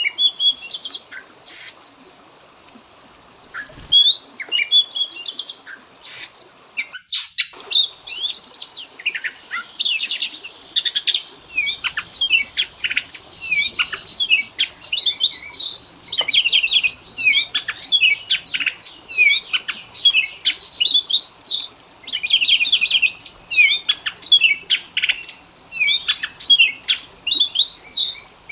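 Oriental magpie-robin (kacer) singing a fast, varied song of chirps, whistled glides and rattling trills, packed with notes mimicked from other birds. The song breaks off briefly about seven seconds in.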